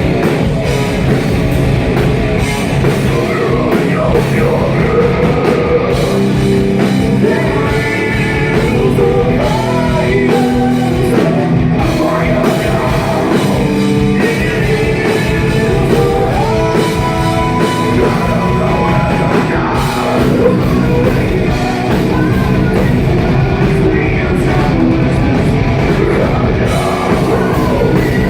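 Live metal band playing loud: distorted guitars, drums and a singing voice, heard through an overloaded phone microphone that distorts the sound.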